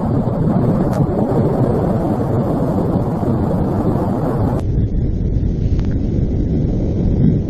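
Loud, steady rumble of wind buffeting the microphone. A little past halfway it turns abruptly duller, as the higher part of the sound cuts off.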